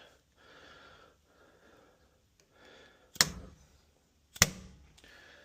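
Two sharp knocks about a second apart, struck on the door while working on a deadbolt install. Before them come a few seconds of faint rustling.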